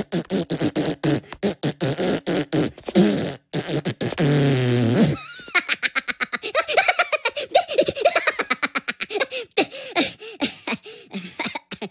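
High-pitched cartoon Minion voices giggling and laughing in quick bursts, with a drawn-out low fart noise about four seconds in.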